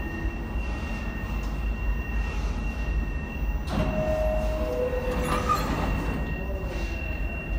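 R68A subway car standing at the platform with a steady low rumble and a thin, steady high whine. About three and a half seconds in, the two-note falling door chime sounds, and the doors slide shut with a brief hissing clatter.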